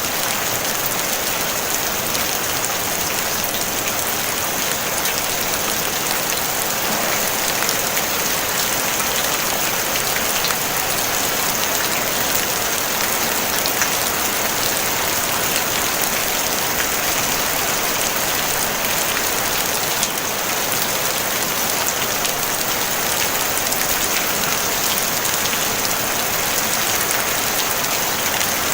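Steady rain falling on a tin roof: a dense, even patter of drops that holds constant throughout, with no thunder.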